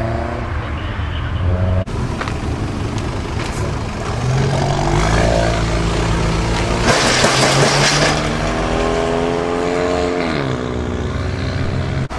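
Modified cars driving away one after another, engines accelerating: the engine note climbs about four seconds in, a loud burst of rushing noise comes about seven seconds in and lasts about a second, then the engine note falls as the car lifts off.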